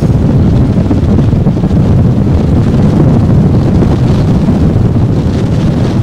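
Severe wind gusts blowing straight onto the camera's microphone: a loud, steady, low rush of wind noise with no let-up.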